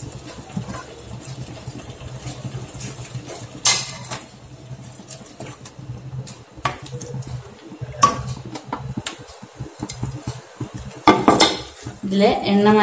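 Wooden spatula scraping and knocking against a non-stick kadai while stirring a thick onion masala, with a few sharper clacks against the pan about four, eight and eleven seconds in. A steady low hum runs underneath.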